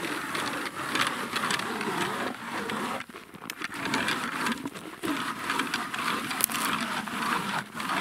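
Hand ice auger being turned to drill a hole through ice, its blades scraping and crunching steadily, with brief pauses about three and five seconds in.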